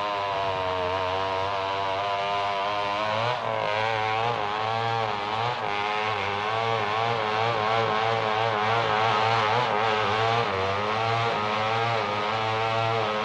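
Chainsaw motor running, steady at first, then revved up and down over and over from about three seconds in, its pitch rising and falling.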